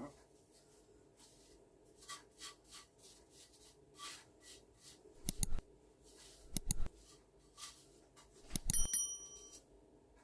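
Small dishes and a spoon being handled while spices are tipped into a bowl: scattered light taps and knocks, then near the end a clink that leaves a short bell-like ring of metal or glass.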